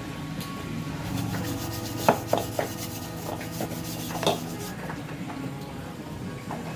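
Hand tools scraping and clinking against metal, with a few sharp ringing clinks about two seconds in and again past four seconds, over a steady low hum.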